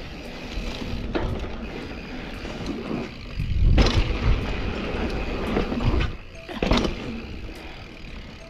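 Mountain bike ridden over dirt jumps and drops: a steady rumble of riding noise, broken by three heavy thumps of landings, the loudest about four seconds in and another near seven seconds.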